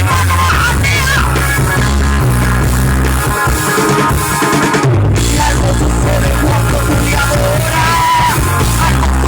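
Loud worship-band music with drums, bass and electric guitar playing, with a brief break about five seconds in.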